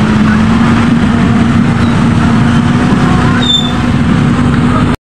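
Motor scooter engines running close by as the scooters crawl along at walking pace, a dense low rumble with a steady hum held at one pitch. The sound cuts off abruptly near the end.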